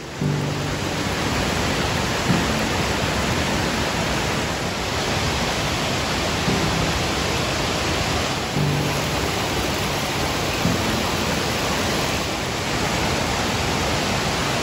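Steady rushing roar of a waterfall, falling water pouring over rock ledges into a pool.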